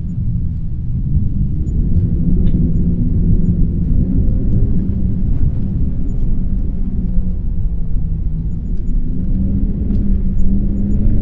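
Wind sound effect: a strong wind blowing as a steady, deep rumbling rush, with a faint low tone running through it.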